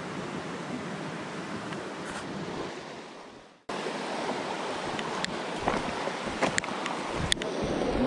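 Shallow mountain stream running over stones: a steady rush of water. It fades out about three and a half seconds in and comes back suddenly, with a few sharp clicks in the second half.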